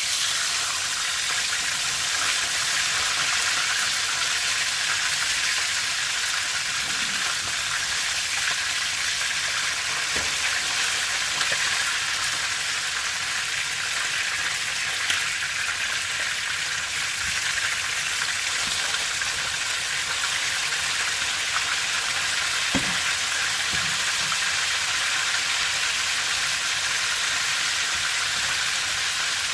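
Parrot fish frying in hot oil in a pot, a steady sizzle, with a few faint knocks.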